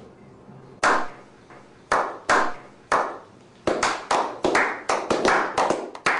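Slow clap from a small group of men. Single claps come about a second apart, then speed up into quicker, overlapping clapping about four seconds in.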